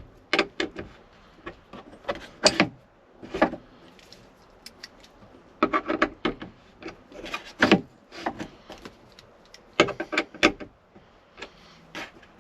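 Irregular clicks, knocks and rubbing from billet aluminum lock knobs being worked and tightened by hand onto the roof panel mounts of a Jeep's removable hardtop. The clicks come in clusters, with the busiest stretch a little past the middle.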